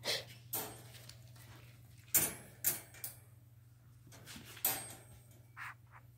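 Metal wire dog crate rattling and clanking in a series of sharp knocks, with two short squeaks near the end.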